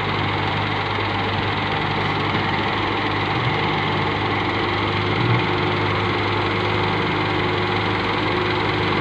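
Diesel engines of a wheeled excavator and a farm tractor running steadily at a constant speed, with a steady low hum while the excavator loads soil.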